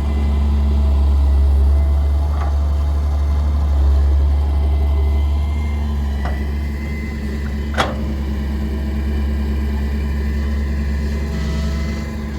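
Heavy diesel engine of a Daewoo 170W3 wheeled excavator running steadily at work, with a few sharp metal clanks. The loudest clank comes about eight seconds in.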